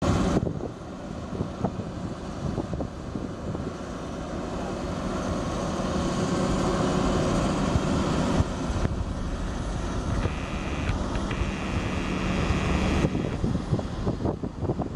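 Diesel engine on a slurry-lagoon agitation boat running steadily, driving its agitation pump, a continuous drone that grows louder through the first half.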